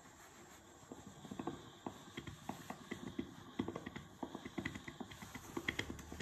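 Clothes iron being pushed and shifted on a padded ironing board while a seam is pressed open: light, irregular knocks and taps, a few a second, starting about a second in and getting busier toward the end.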